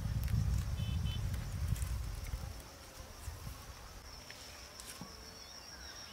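Field ambience with a steady high insect drone. A low rumble fills the first two and a half seconds, then fades, leaving the drone and a few scattered clicks.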